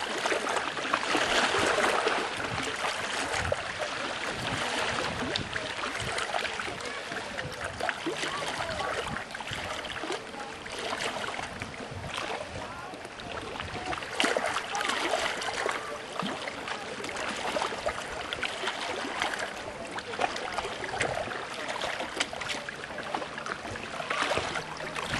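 Water rushing and splashing steadily around a moving boat's hull, with irregular slaps and spray.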